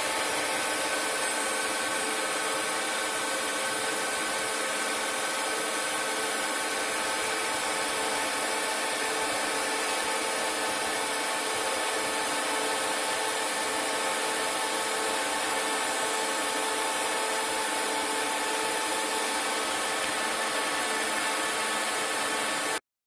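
CNC lathe turning a brass part dry, without coolant: a steady cutting hiss over a machine whine held at several fixed pitches. It cuts off suddenly just before the end.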